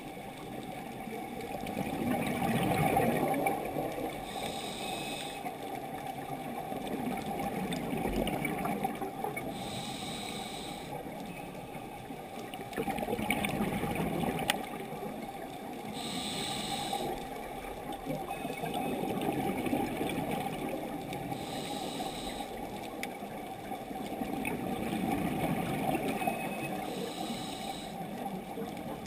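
A scuba diver breathing through a regulator underwater, in a slow cycle about every five to six seconds: a short high hiss on each breath in, then a longer burst of bubbling on each breath out.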